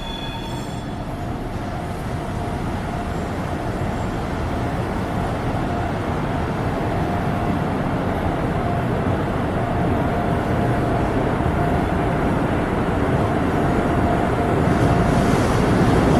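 A train running on the line, its steady wheel and track rumble growing gradually louder as it nears. A high wheel squeal dies away within the first second.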